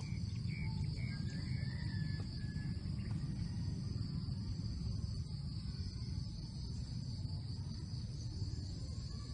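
A steady, high-pitched drone of insects in forest undergrowth over a low rumble, with a few short faint chirps in the first few seconds.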